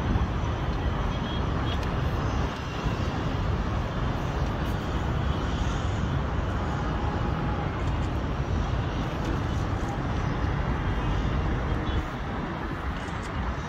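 Steady outdoor rumble at height: wind buffeting the microphone mixed with the distant hum of city traffic far below.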